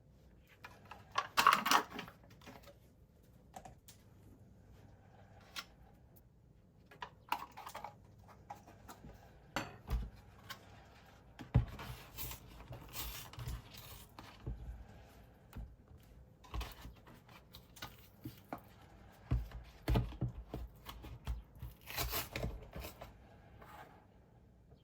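Kitchen preparation sounds: scattered rustling and tearing of packaging with small taps and clicks, coming in irregular bursts.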